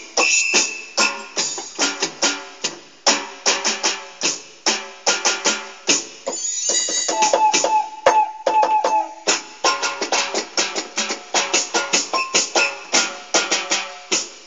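Drum sounds on an electronic keyboard, struck by hand in fast, dense rhythmic hits. A run of repeated pitched notes comes in around the middle.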